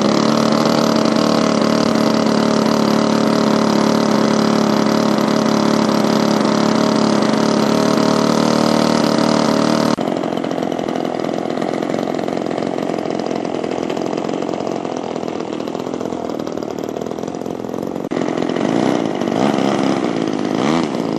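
RCGF 20cc Stinger two-stroke petrol engine in a Seagull Yak 54 RC plane running up after starting, being warmed up: a steady, loud drone for about ten seconds, then a drop to a lower setting, with the pitch swinging up and down near the end as the throttle is worked.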